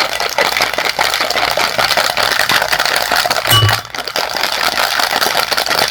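Ice cubes rattling inside a cocktail shaker being shaken hard to chill the drink: a fast, loud, continuous rattle with a brief break a little under four seconds in.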